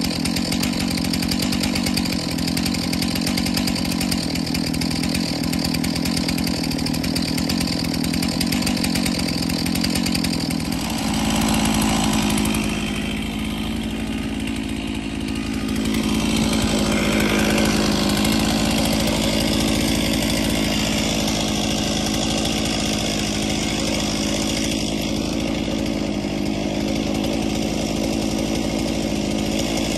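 Gasoline chainsaw running steadily; its sound changes about eleven seconds in and then settles into a steady higher tone.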